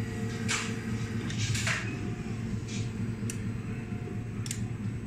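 Arrow-fletching machine running with a steady hum, with short hisses of air and a couple of sharp clicks as its air-driven clamps close on the arrow shafts.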